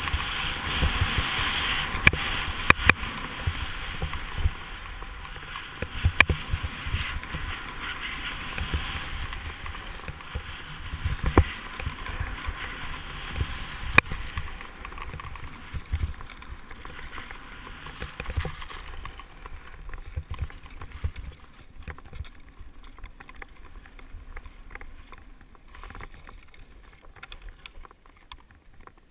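Sit-ski sliding down a snowy slope: a steady hiss of ski on snow with wind rumbling on the camera's microphone, broken by several sharp knocks. The noise fades to a much quieter run about two-thirds of the way through.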